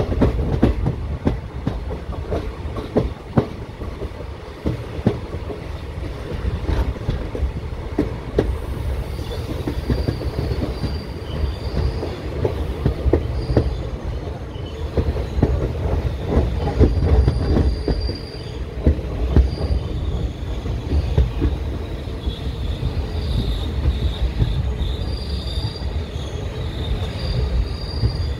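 Express train's ICF passenger coaches rolling along the platform line, wheels clacking over rail joints over a steady rumble. From about a third of the way in, high-pitched wheel squeals come and go.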